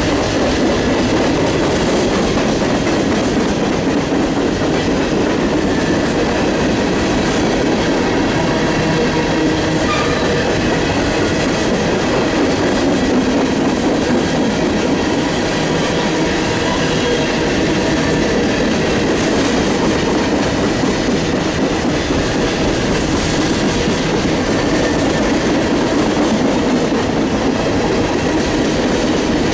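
Freight train cars rolling past steadily, wheels clattering over the rails, with a faint high steady wheel squeal.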